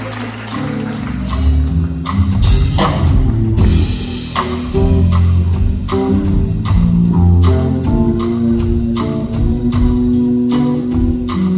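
Live bass-and-drums band music: two electric bass guitars playing melodic lines over a drum kit keeping a steady beat of drum and cymbal strokes.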